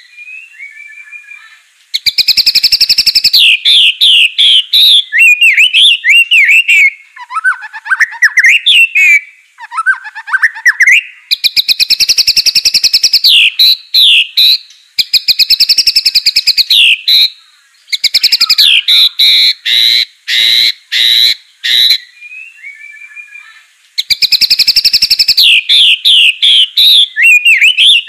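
White-rumped shama (Aceh murai batu) singing loud, repeated song bouts. Each opens with a fast, even rattle of notes lasting a couple of seconds and runs on into varied sweeping whistles. The bouts come four times, with short pauses between.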